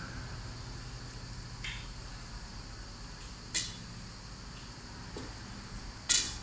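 Wooden spatula knocking against a cooking pan: three short clicks, the loudest near the end, over a low steady hum.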